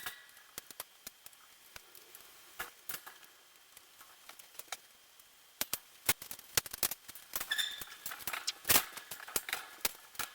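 Scattered light clicks and knocks as the last shelf is fitted into a bookshelf rack, sparse at first and coming thicker and a little louder from about halfway.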